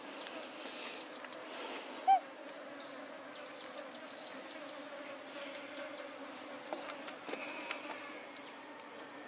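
Insects buzzing in a steady, wavering drone, with short high chirps repeating over it. About two seconds in there is one brief, loud pitched squeak.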